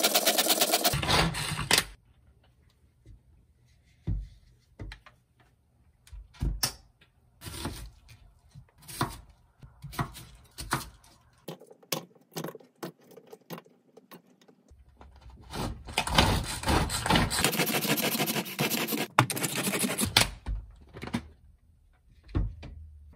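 Pull-cord manual food chopper run by yanking its string, spinning the blades with a fast, dense rattle: briefly at the start, then again for about five seconds later, mincing onion. In between come scattered clicks and knocks of the plastic lid and bowl being handled.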